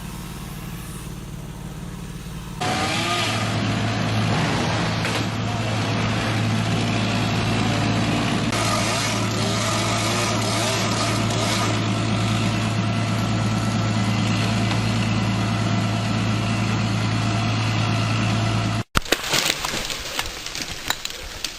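An engine running steadily at an even pitch, starting abruptly a few seconds in and cut off suddenly near the end.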